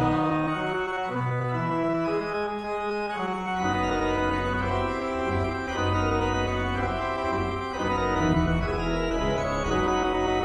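Church organ playing the sustained chords of a hymn, with no voices singing; the chords change about every second.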